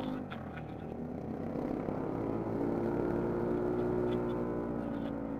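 Bored-up Yamaha NMAX scooter's single-cylinder engine running under way, its pitch rising gently and easing back down.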